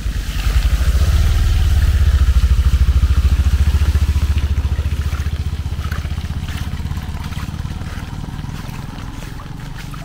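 A motorcycle engine passing close by with a fast pulsing rumble, growing louder over the first two or three seconds and then slowly fading away, over a steady hiss of rain.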